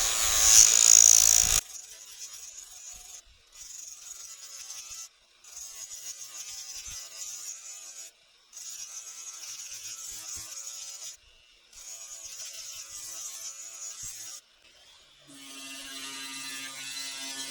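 A small power tool working parts in repeated runs of two to three seconds with short pauses between them, after a loud hissing burst at the start. Near the end it runs steadily with a low hum.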